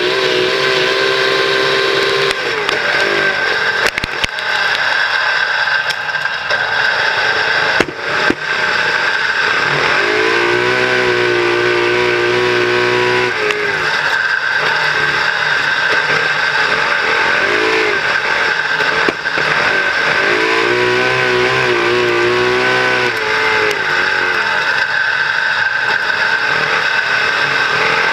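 Superstock speedway race car's engine heard close up from an onboard camera inside the car, running hard under a constant loud din of engine, wind and tyre noise. The engine note swells and drops in repeated waves as the car laps the dirt oval.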